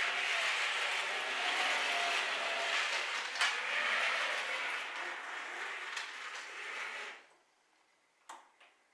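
O scale model Sydney tram running along its track: a steady rolling noise with a faint motor hum, broken by a single click about three and a half seconds in and another around six seconds. The sound cuts off suddenly about seven seconds in, followed by two faint clicks near the end.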